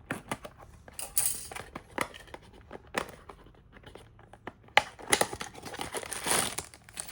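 Small cardboard blind box being torn open by hand and its packaging crinkled, with scattered sharp clicks from handling and a denser stretch of crinkling near the end.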